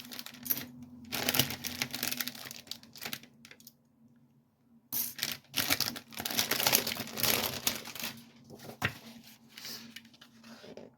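A magazine's paper pages being handled and turned, rustling in two spells with a short quiet gap between, then lighter handling noise near the end.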